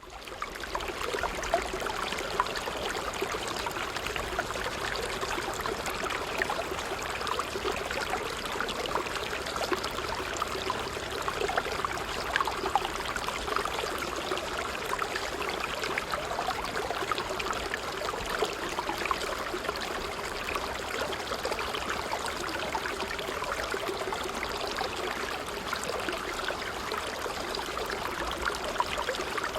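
Water trickling and splashing steadily in a continuous stream, a dense patter of small splashes with no break.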